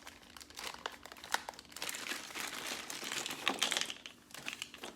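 A small plastic parts bag being torn open and handled, crinkling and rustling irregularly, busiest about two to four seconds in.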